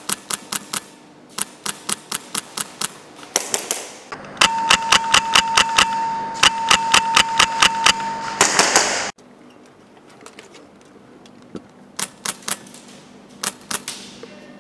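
Airsoft rifles firing bursts of BBs, a run of sharp rapid clicks at about eight shots a second. The longest, loudest string comes in the middle, over a steady high hum, and cuts off suddenly a little after the halfway point.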